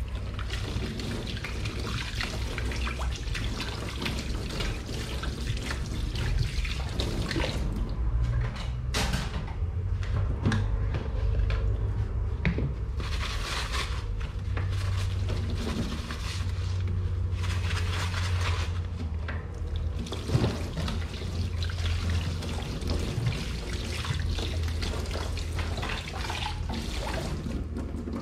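Water running into a kitchen sink while dishes are washed, a continuous splashing hiss with a few sharp clinks.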